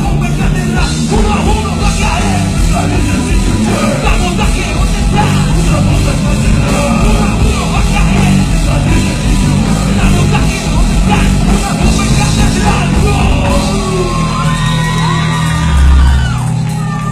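Live rock band playing loud: electric guitars and drums, with a singer yelling into the microphone, and a heavy low thump near the end.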